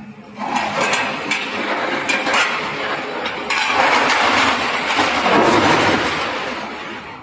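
Hyundai 215 excavator working: engine noise mixed with metal clanks and knocks, swelling about half a second in, louder from about three and a half seconds, then fading near the end.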